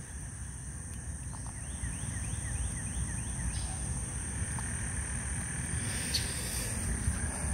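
Outdoor ambience after rain: a steady high insect drone over a low rumble, with a quick run of about ten short falling chirps in the first half.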